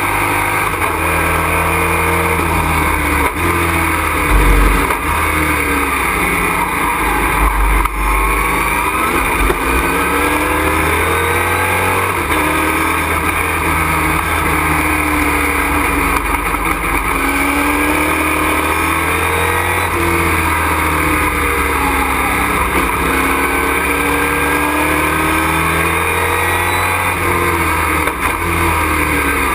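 Race truck's engine heard from inside the cockpit at racing speed, its pitch climbing and dropping again and again as it accelerates, brakes and shifts through the corners, over a steady rush of wind and road noise. Low thuds come about four and eight seconds in.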